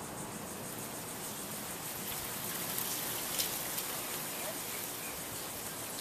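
1979 Casablanca Columbia II ceiling fan running at speed: a steady airy whoosh from the spinning blades, with a few faint ticks about halfway through.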